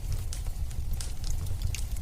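Fireplace wood fire crackling: irregular sharp pops and snaps over a steady low rumble of the flames.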